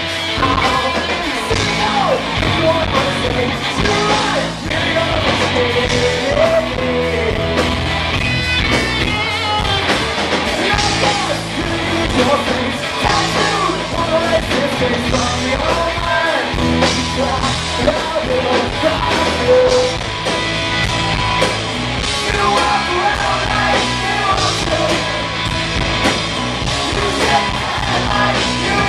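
Rock band playing live: electric guitars, bass guitar and drum kit, with a man singing over them.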